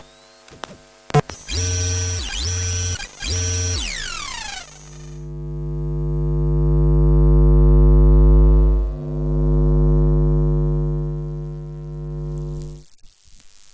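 Sound-design samples recorded from electronic circuitry. A couple of clicks come first, then three short buzzy bleeps and a falling sweep. A low electric hum then swells up, breaks briefly midway and cuts off suddenly near the end.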